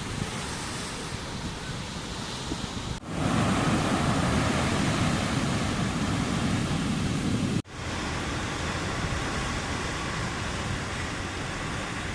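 Steady outdoor rush of wind and ocean surf, with wind buffeting the microphone. It changes abruptly twice, about 3 s and 7.5 s in; the middle stretch is louder, with more low rumble.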